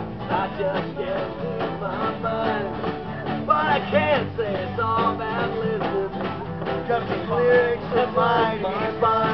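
Small live band playing an instrumental break: strummed guitars with a lead melody line sliding between notes over them.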